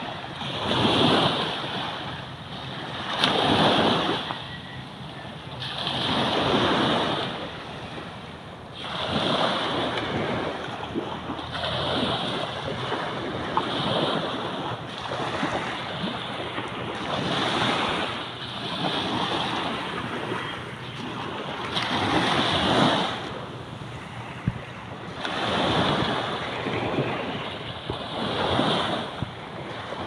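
Small waves lapping and washing up onto a sandy shore, the surf noise swelling and falling back every two to three seconds.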